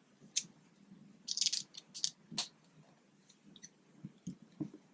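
Small plastic and metal clicks and rattles as an Allen key turns a screw into a plastic Quad Lock vibration dampener mount: several sharp clicks in the first two and a half seconds, then a few soft knocks about four seconds in.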